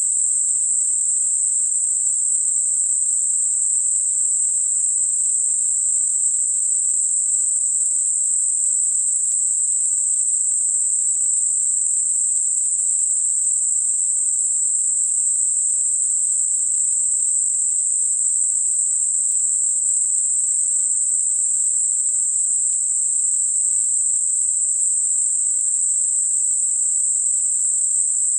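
Synthesized Gaussian narrow-band noise centred at 8 kHz: a steady, smooth high-pitched hiss with no lower sound beneath it. It is a tinnitus masker aimed at high-pitched ear ringing.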